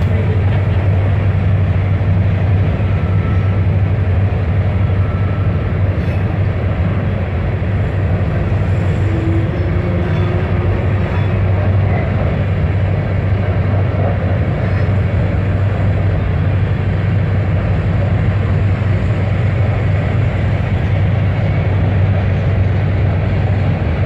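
Grain train's covered hopper cars rolling past across a girder bridge: a steady, loud rumble of steel wheels on rail.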